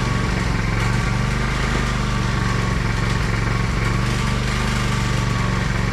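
Generator engine running steadily, its note rising and dipping slightly now and then.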